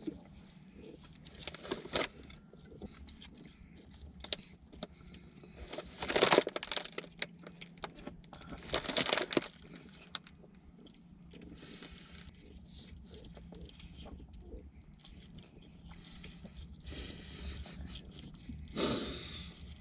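Crinkling of a plastic caramel wrapper in several short bursts, about four in all, as soft caramels are unwrapped and handled, with quiet chewing in between.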